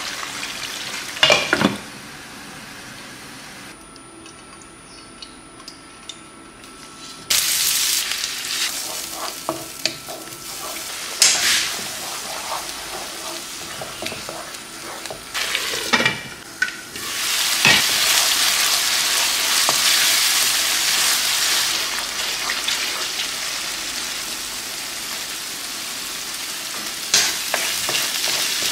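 Food frying and sizzling in a pan as it is stirred, with a few sharp clinks of the utensil against the pan. The sizzle is softer for a few seconds near the start, comes back louder about seven seconds in, and is loudest from about seventeen seconds in.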